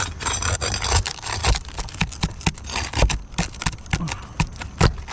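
Irregular scraping and sharp knocks of a hand tool working on roof shingles, prying and scraping them loose.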